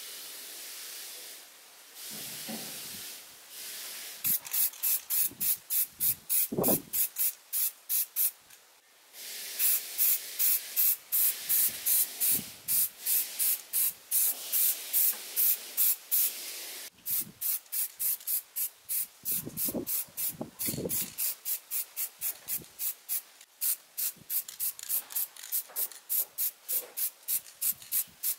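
Aerosol spray-paint can hissing. It sprays steadily for a few seconds at a time, and between those long sprays it goes in rapid short puffs, about four to five a second.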